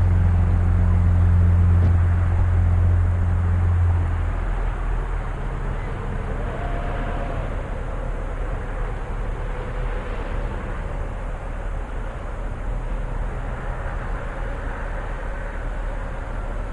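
A vehicle engine runs with a steady low drone that stops about four seconds in. It leaves a steady outdoor rumble with a faint engine tone that rises briefly, then holds.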